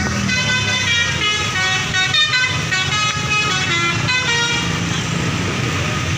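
Multi-tone musical bus horn of the Indonesian 'telolet' kind playing a quick tune of short stepping notes, which stops about four and a half seconds in. A steady low rumble runs underneath.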